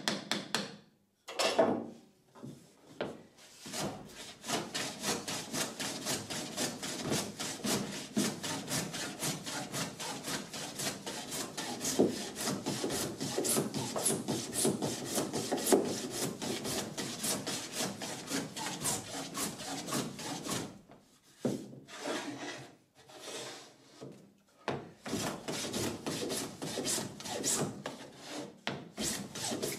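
Metal bench plane shaving the face of an oak board by hand: quick, short scraping strokes one after another, with a lull of a few seconds about two-thirds of the way through before the strokes start again. A couple of knocks come near the start.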